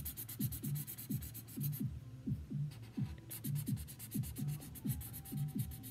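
Felt-tip marker scribbling on paper in quick back-and-forth colouring strokes, pausing for about a second and a half about two seconds in. A low, steady beat of background music runs underneath.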